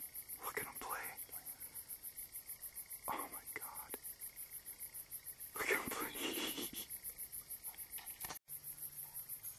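Field insects chirping in a steady, rapid, high-pitched pulse, about six chirps a second. A few brief soft noises break in over it, the loudest about six seconds in.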